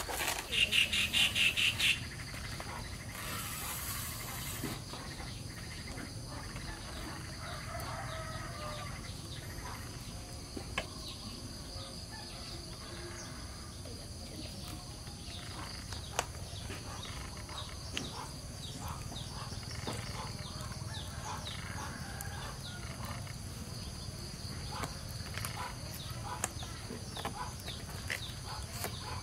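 Rural outdoor ambience with animal and bird calls and a steady high thin whine, under light scattered crackles of banana stalk and leaves being cut and handled. A loud rapid rattle, about eight pulses a second, sounds in the first two seconds.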